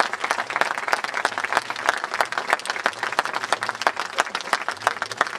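Crowd applauding: many hands clapping densely and irregularly.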